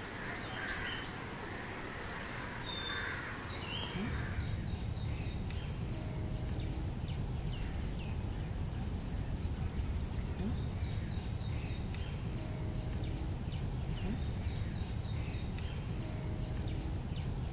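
Bird calls outdoors: harsh calls in the first few seconds. From about four seconds in, a steady low rumble, with short runs of quick high chirps repeating every few seconds over a steady high hiss.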